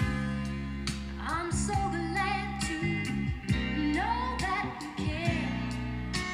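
A vinyl record of a song with singing and guitar, played on an AR XA turntable through Altec Lansing Valencia horn speakers and picked up by a microphone in the room.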